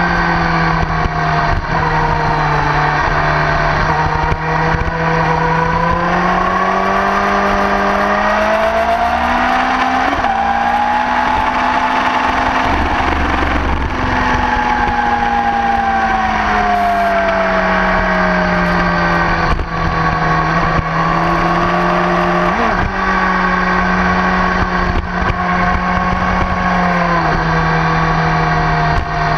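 Motorcycle engine running hard at track speed. Its note holds steady, climbs smoothly for several seconds from about six seconds in, then falls back and levels off. A steady low rush of wind noise runs under it.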